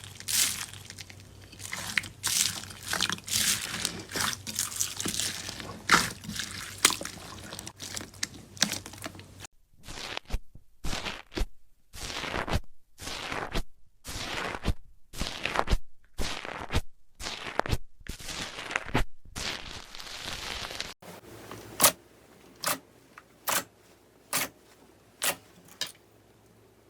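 Slime being squeezed and worked by hand, crackling and popping densely at first. From about ten seconds in come separate wet squishes with short silences between them, and then sharp single pops about once a second near the end.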